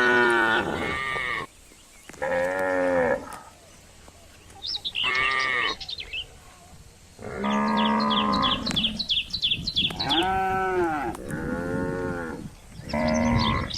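Cattle mooing over and over, about seven separate calls with short gaps between them, several of them rising and then falling in pitch.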